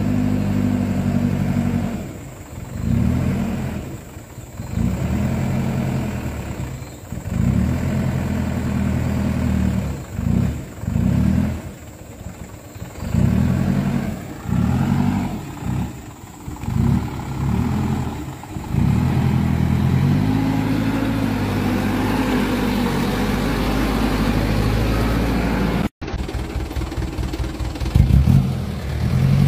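Diesel engine of a loaded Mitsubishi Fuso Canter dump truck labouring at crawling speed over a rutted mud track. Its note swells and drops roughly every second as the throttle is pushed and let off, then runs more steadily before cutting off abruptly near the end.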